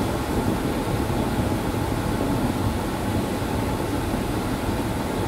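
Steady background air-handling hum, low and even, with a faint steady tone above it.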